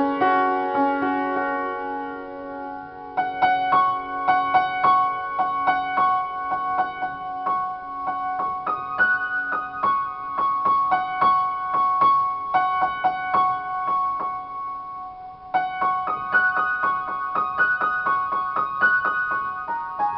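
Upright piano played in a free improvisation: a few held notes and chords, then from about three seconds a flowing run of repeated notes in the middle and upper range, with a fresh phrase starting about three-quarters of the way through.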